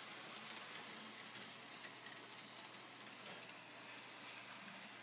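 Faint steady hiss with light ticking: an N scale Kato PRR Mikado model steam locomotive and its freight cars running along the track.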